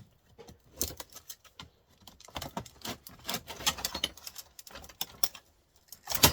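Flat screwdriver bending out metal ends on a TV's internal parts: irregular clicks, ticks and scrapes of metal on metal, with one sharp, loud click near the end.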